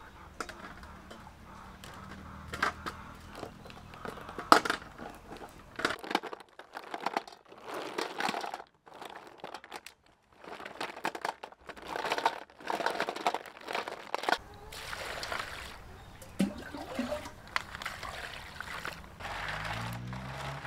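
Handfuls of river snails' shells clattering and knocking against each other and a metal bowl as they are handled, with water swishing as they are washed in the bowl.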